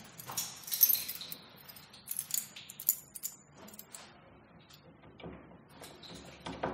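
Keys jangling in a hand: a run of small metallic clinks and chinks, busiest in the first three seconds, then a few fainter clicks.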